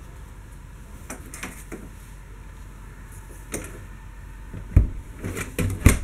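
Light clicks, then two heavy low thumps about a second apart near the end with clatter between them, over a steady low hum: footsteps and camera handling noise as someone walks through a travel trailer's interior.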